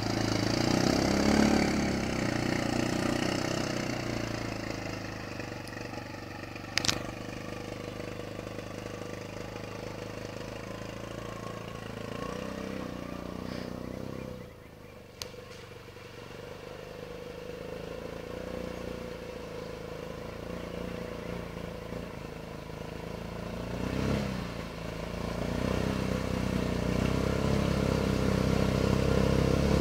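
Linhai XWR 260 ATV's single-cylinder four-stroke engine running as the quad drives through shallow river water, with splashing spray. The engine fades as it moves away, then, after a sudden break, grows louder again as it approaches near the end.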